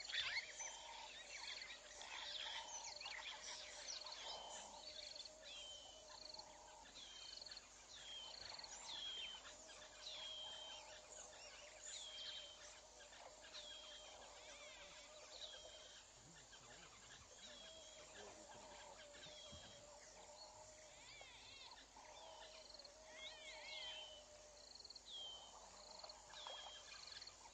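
Faint bush ambience: a bird repeats a short call that slides down in pitch, about once a second. Under it a low steady hum comes and goes.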